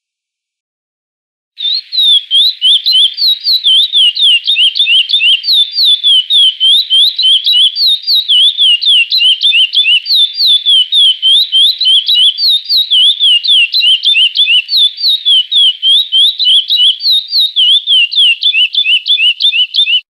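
Curió (chestnut-bellied seed finch) singing the 'praia clássico' song: a fast, unbroken run of clear whistled notes that swoop down and up. It starts about a second and a half in.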